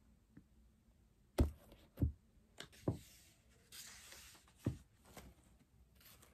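A paperback book being handled: a few soft thumps as it is knocked and set against the desk, and a short rustle of pages being riffled through about two-thirds of the way in.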